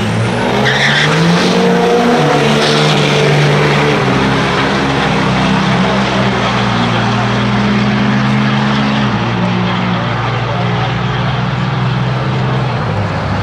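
Two pickup trucks launching from a drag strip start line and running flat out down the track. The engine pitch climbs and drops through gear shifts in the first few seconds, then settles into a steady drone as they pull away.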